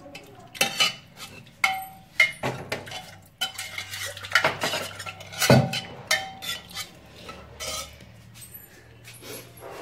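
Stainless-steel kitchen vessels and utensils being handled: a string of clanks, clinks and scrapes, some ringing briefly. The loudest knock comes about halfway through.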